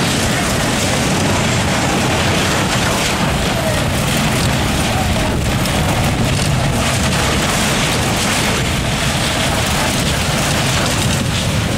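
Mine-train roller coaster cars running at speed along the track, a steady loud rumble and rattle.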